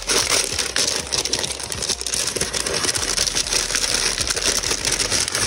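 Tissue paper crinkling steadily as a wrapped package is handled and unwrapped, a dense stream of small crackles.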